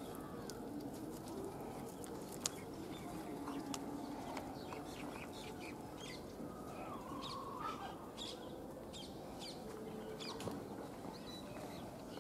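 Scattered short chirps of small birds and chickens, with a few faint wavering calls, over quiet outdoor background. One sharp click comes about two and a half seconds in.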